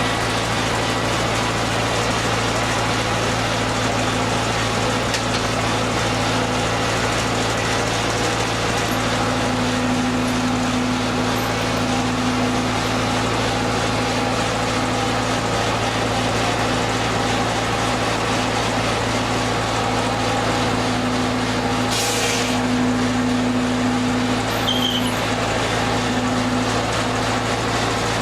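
Old powered demonstration machinery running steadily, giving a constant mechanical hum that holds one pitch throughout.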